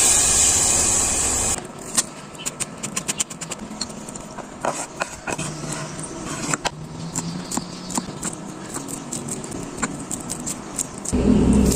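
A loud steady hiss for about the first second and a half, then irregular light clicks and rustling from objects being handled, with a louder rumbling noise coming back near the end.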